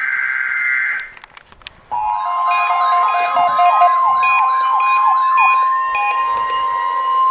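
Emergency Alert System tones: a burst of buzzing digital data tones ends about a second in, then after a short gap an electronic siren-like alert tone sweeps quickly up and down over a steady tone and settles into steady tones. These are the tones that open an alert broadcast, here ahead of the Amber Alert cancellation.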